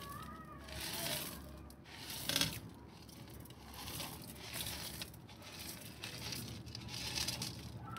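Small aquarium gravel poured from a plastic cup, pebbles rattling and hissing onto a gravel bed in a glass tank, in several pours, the loudest about two and a half seconds in.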